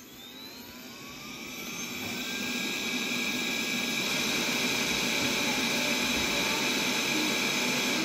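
Xiaomi Mi Robot Vacuum switched on: its motor spins up with a rising whine over the first couple of seconds, then runs as a steady high whir.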